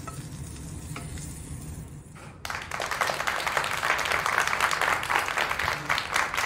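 Metal tongs clicking faintly against a nonstick frying pan over a low hum, then about two and a half seconds in an abrupt switch to louder, dense applause.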